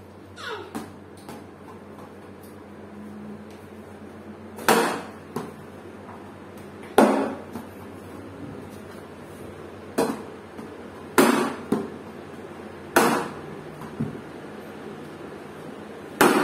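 Hollow knocks of a yellow plastic toy cricket bat striking a plastic ball and the hard tiled floor, about seven sharp hits several seconds apart, each ringing briefly in the bare room.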